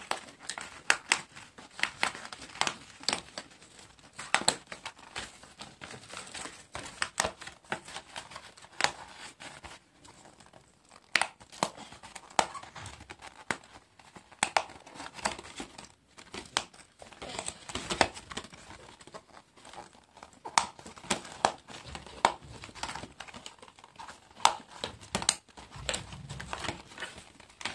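Thin printed card being handled and die-cut pieces pressed out of their sheets: irregular small snaps and crackles of card, with rustling and tearing.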